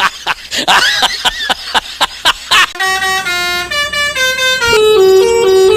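A rapid series of sharp clicks, about five a second, then a bus telolet horn (Basuri-style multi-tone air horn) playing a tune of held notes that step downward in pitch.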